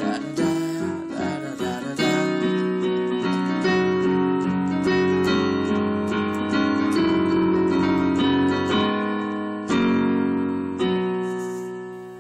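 Keyboard with a piano sound playing slow held chords, the last chord struck near the end and left to ring and fade away.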